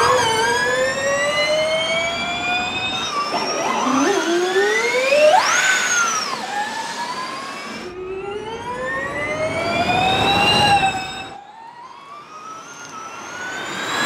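Audi Sport ABT Schaeffler's Season 4 (Gen1) Formula E car: the high whine of its electric motor and gearbox rising in pitch as it accelerates, heard in several runs one after another. About five seconds in, one whine climbs and then drops away as the car passes by, and the sound is quieter for a couple of seconds near the end.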